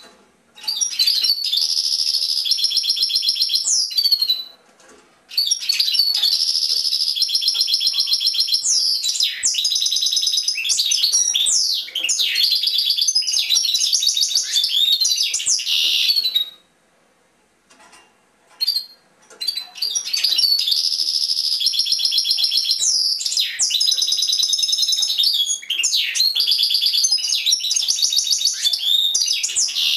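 European goldfinch singing: long phrases of rapid twittering trills mixed with high sweeping notes. The song comes in three bouts, a short one and then two of about ten seconds each, broken by pauses of a second or two.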